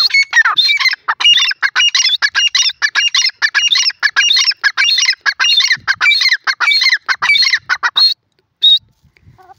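Grey francolin calling loudly: a fast run of harsh, repeated notes, about four a second, for about eight seconds. The run breaks off abruptly, and one last note follows a moment later.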